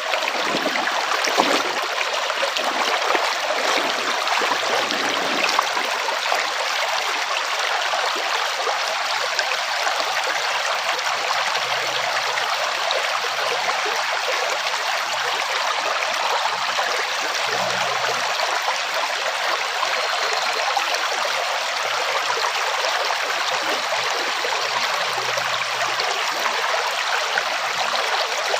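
Rushing water of a stream or small cascade, a steady even rush.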